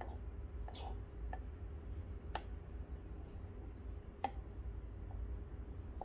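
Steamed milk poured quietly from a steel pitcher into a ceramic cup over a steady low hum, with four light clicks spread through the pour.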